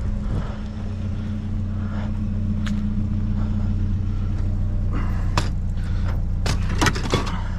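Vehicle engine running steadily with a low hum. A few sharp clinks and knocks come about five to seven seconds in.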